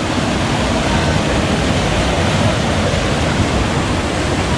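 Mountain stream water rushing over boulders in a small cascade into a rock pool, a steady loud rush close to the microphone.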